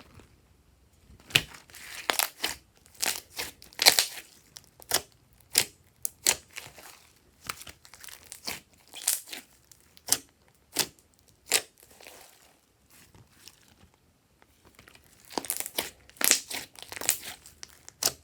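Glossy slime being squeezed and pressed by hand, giving short crackling, popping squelches about once or twice a second, with a quieter pause in the middle and a faster run of crackles near the end.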